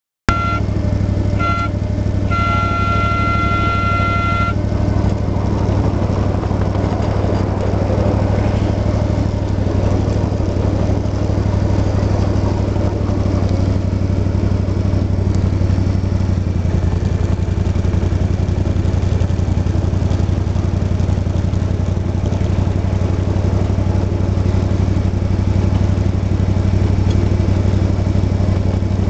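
Ride-on 1/8-scale SOO Line F7A model diesel locomotive running with a steady engine hum. In the first few seconds its horn sounds two short toots and then one longer blast of about two seconds, the signal given at a whistle post.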